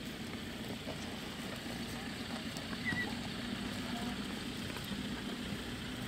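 Steady low hum of an idling game-drive vehicle engine, with scattered faint crunches and tearing from spotted hyenas feeding on a giraffe carcass.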